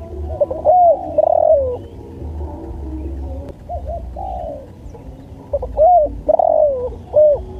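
Spotted dove (tekukur) cooing: three phrases of arched coos, each ending in a longer rolling note, over a faint low hum.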